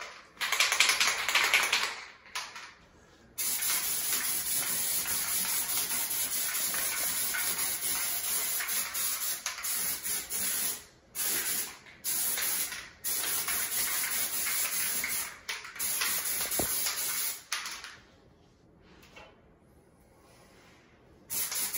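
Aerosol spray can of Kilz oil-based primer spraying with a steady hiss. A short burst comes near the start, then a long spray with a few brief breaks, stopping a few seconds before the end.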